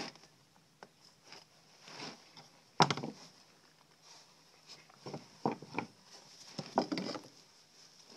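Scattered clicks and knocks from hands and tools working on a pheasant carcass, with one sharp knock about three seconds in and a run of clicks in the second half.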